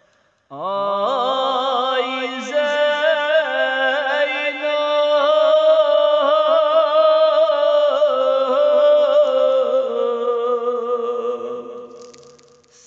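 A male reciter chanting a noha, the Shia mourning lament, unaccompanied: one long ornamented line with a wavering held note. It rises in about half a second in, after a brief pause, and fades away near the end.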